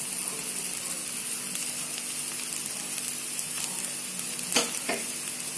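Sliced potatoes sizzling steadily in hot oil in a kadai, the gas just turned off. Two light clicks sound near the end.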